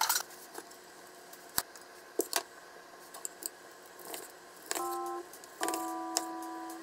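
A kitchen knife slicing a pan-fried chicken thigh on a wooden cutting board: a handful of separate cuts and knocks of the blade against the board. About five seconds in, a light plucked-sounding music phrase comes in.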